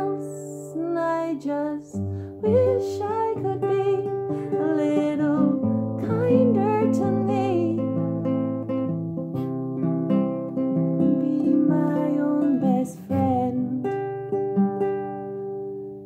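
Acoustic guitar strummed under a woman's singing voice, her pitch wavering on held notes.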